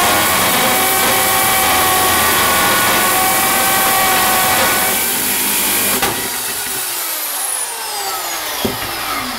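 Corded hammer drill boring into a block of wood, its motor running at a steady pitch under load. About six seconds in, the motor is let go and winds down with a falling whine.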